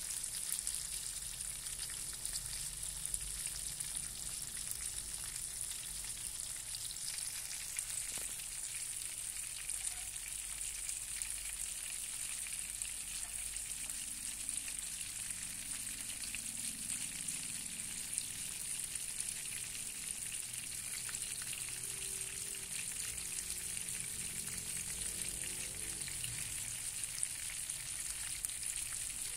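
Hot oil sizzling steadily around a thick steak of cá kẽm (grunt fish) frying in a nonstick pan, with scattered small crackles.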